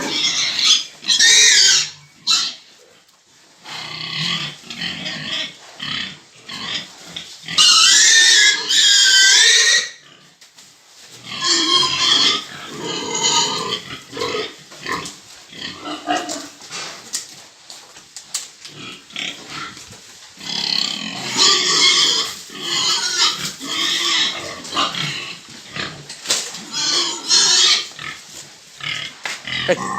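Pigs squealing loudly and grunting as they are driven and loaded, with repeated shrill squeals; the longest and loudest comes around eight to ten seconds in.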